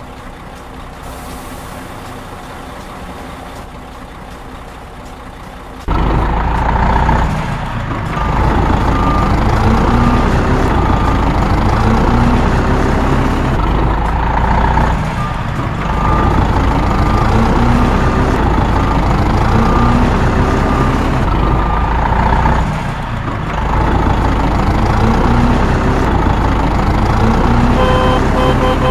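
Heavy truck engine running, getting much louder about six seconds in, its pitch rising again and again as it pulls away through the gears. Near the end there is a pulsing beep.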